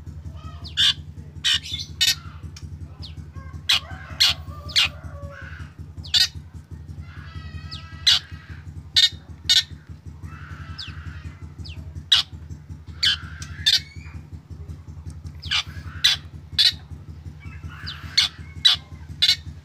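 Black drongo calling: a string of short, sharp, loud calls at irregular intervals, with a quick stuttering run of notes about seven to eight seconds in and a harsher rasping call just after ten seconds. A steady low hum runs underneath.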